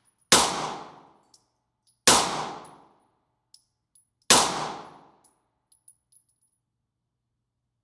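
Three single gunshots from a handgun about two seconds apart, each sharp crack trailing off in a ringing echo over about a second. Faint light ticks between the shots, typical of spent shell casings landing.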